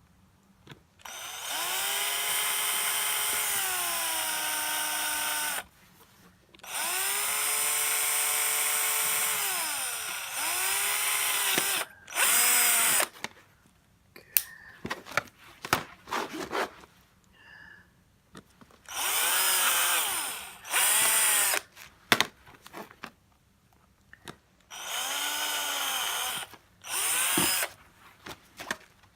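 Power drill boring holes in a plastic trim piece, in about six runs of a few seconds each. The motor's whine sags in pitch as each run ends, with small clicks and handling noises between runs.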